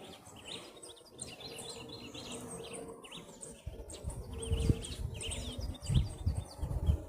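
Small birds chirping over and over in the background. From about halfway through, low rumbling thumps come in, the loudest of them a little before the end.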